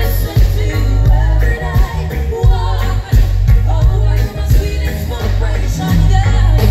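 Live reggae band playing through a festival PA, with heavy bass and a steady drum beat, and a woman singing over it.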